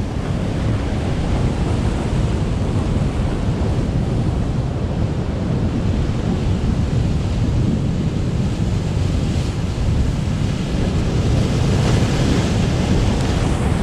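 Heavy ocean surf breaking on a rocky shore, a continuous low rush with wind buffeting the microphone. A bigger wave crashes in a burst of whitewater near the end.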